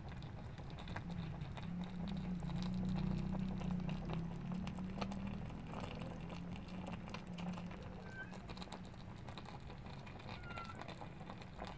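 Pechay and cabbage simmering in broth in a pan, with irregular small pops and crackles over a low steady hum that is louder in the first half. A few faint short chirps come in the last few seconds.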